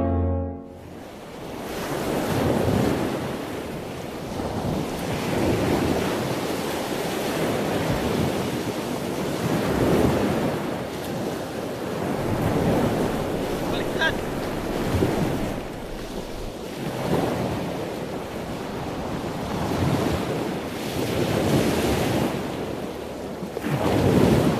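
Ocean surf: waves breaking and washing in, the noise swelling and easing every few seconds, with wind buffeting the microphone.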